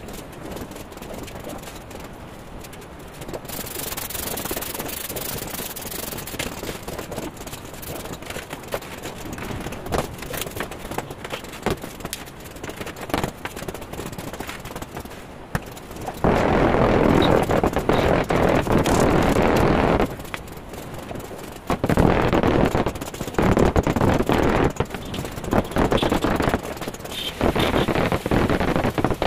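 Rough scraping and rubbing on ceramic floor tiles and wet cement mortar while floor tiles are laid, quieter at first. About halfway through, a loud stretch of scraping runs for a few seconds, followed by several shorter loud bursts.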